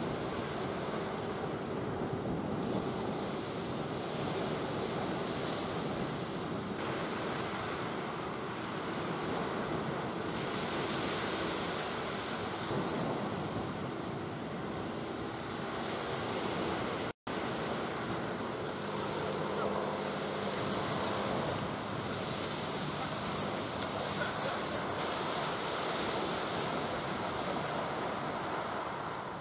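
Waves washing and wind blowing at sea, with wind buffeting the microphone and a faint steady low hum beneath. The sound cuts out for an instant about halfway through.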